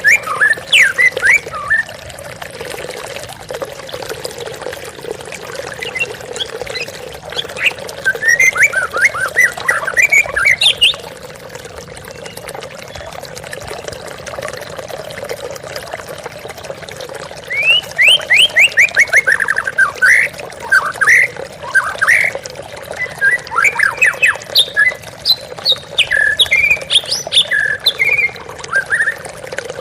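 White-rumped shama (murai batu) singing in bouts of quick, sweeping whistled notes with pauses between, over the steady rush of a waterfall.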